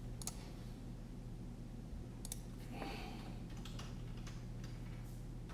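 Faint, scattered clicks of a computer keyboard being typed on, over a steady low hum.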